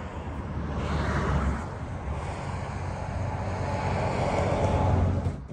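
Highway traffic passing close by, a rushing tyre-and-engine noise with a low rumble. It swells about a second in, eases, builds again toward the end and cuts off suddenly.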